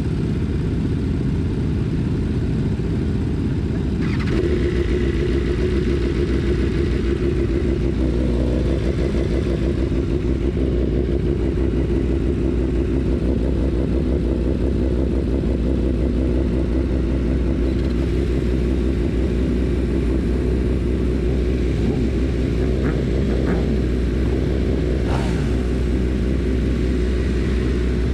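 BMW S1000RR inline-four idling steadily, with other motorcycles idling around it. A second engine note joins about four seconds in.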